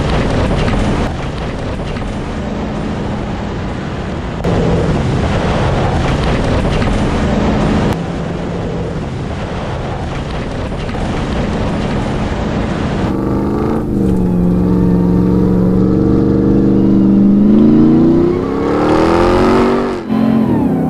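Ram 1500 TRX's supercharged V8 running hard off-road, mixed with tyre and dirt noise. About two-thirds of the way through, the engine note clears into a steady tone, then climbs as it revs near the end.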